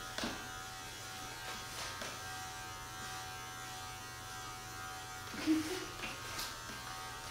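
Electric hair clippers buzzing steadily while shaving a head. A brief voice sounds about five and a half seconds in.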